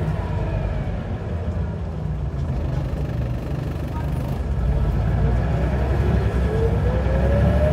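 Scania DC9 9-litre diesel and ZF Ecomat automatic gearbox of a Scania N94UB bus, heard from inside the saloon while the bus is under way. The drive grows louder about halfway through as it pulls harder, and a whine rises in pitch near the end as the bus accelerates.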